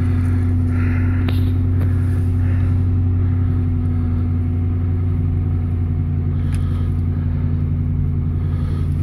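Infiniti FX SUV's engine idling steadily just after a cold start in deep frost, heard from inside the cabin as a constant low hum.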